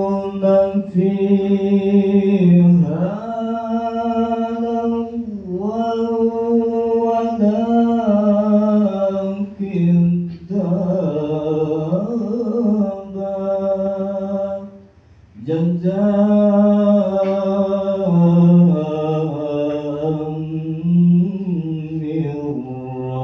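A man reciting the Quran in Arabic in the melodic chanted style of tilawah, holding long ornamented notes that slide and waver in pitch, with a short breath pause about two-thirds of the way through.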